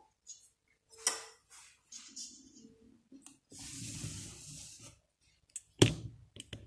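Fine semolina poured from a drinking glass into a stainless steel mixing bowl, a dry hiss lasting about a second and a half. A glass clinks about a second in, and a sharp knock of the glass comes near the end.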